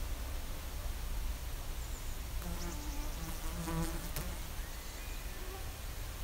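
Flies buzzing close by, several passes with a wavering pitch, loudest from about two and a half to four seconds in, then a single sharp click.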